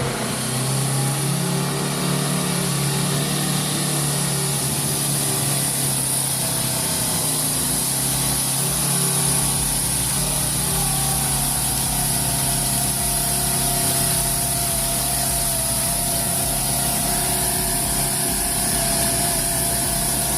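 A machine's engine running steadily, with a higher whine coming in about halfway through.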